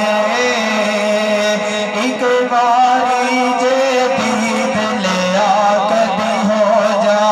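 Male voices singing a Punjabi devotional song in praise of Khawaja, drawn out in long wavering melismatic lines over a steady low drone, amplified through microphones.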